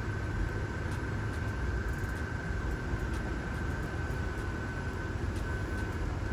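Steady low outdoor rumble with a faint, steady high-pitched tone running through it.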